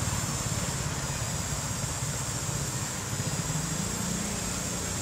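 An engine running steadily: a low, evenly pulsing rumble under a steady high hiss.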